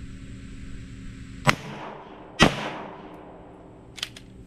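Two pistol shots just under a second apart, each trailing off in a short echo, followed by a faint click near the end.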